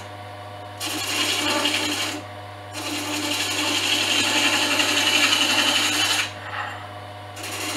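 A chisel cutting a spinning olive wood pen blank on a small wood lathe: a rubbing, scraping hiss in two passes, one about a second long and one about three and a half seconds, over the lathe motor's steady hum. The rubbing noise is the sign that the blank has been turned smooth and round.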